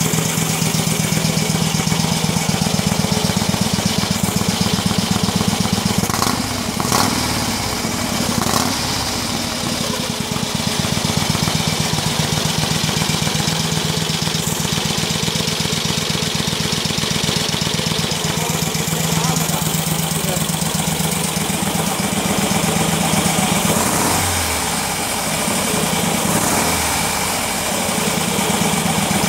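1200cc Vincent Black Lightning V-twin engine running steadily at idle through its exhaust, with its note wavering briefly about six seconds in and again near twenty-four seconds.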